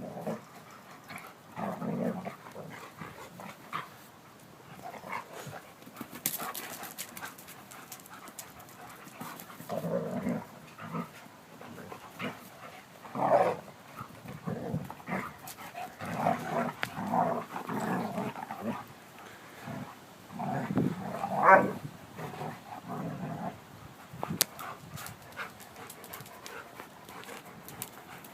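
Two young German Shepherd dogs playing, giving irregular bursts of low play growls and higher whines with panting between. The loudest is a short high-pitched cry about three-quarters of the way through.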